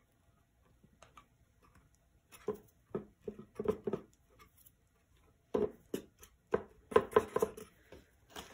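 Hands handling a painted box frame and its glued-on pom-poms: a scatter of light taps and rubbing sounds in two bursts, one about a third of the way in and another just past the middle.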